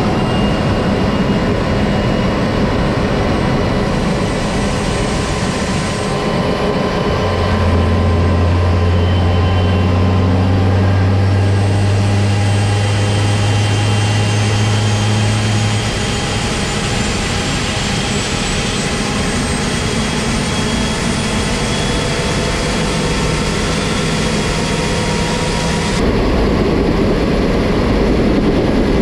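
UH-60L Black Hawk helicopter's twin turboshaft engines and rotor system running on the ground, heard inside the cabin as a loud, steady roar with turbine whine. A strong low hum sits under it for several seconds midway, and a faint high whine slowly rises in pitch.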